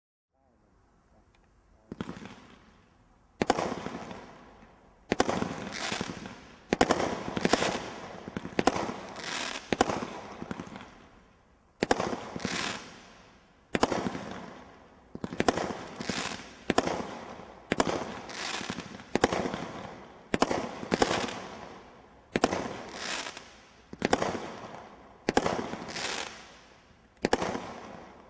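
A 19-shot Category 2 combination Roman candle barrage firework ('Ninjas Time') firing shot after shot, about one or two loud bangs a second, each fading out before the next, with a couple of short pauses in the sequence.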